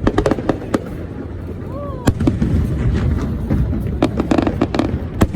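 Aerial fireworks going off: a string of sharp cracks and bangs over a steady low rumble. There are several quick cracks in the first second, a loud one about two seconds in, a cluster around four seconds and another near the end.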